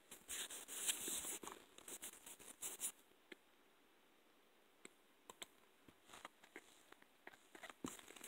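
Faint rustling and scratching with many small clicks for about the first three seconds, then scattered single clicks and rustles.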